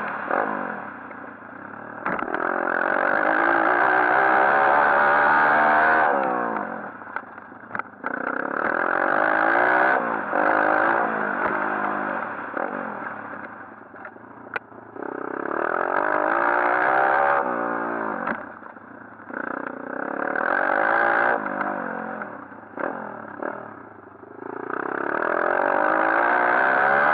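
A 140cc pit bike's single-cylinder four-stroke engine being ridden hard: it accelerates, rising in pitch, then backs off, about five times over, with a few short knocks in between.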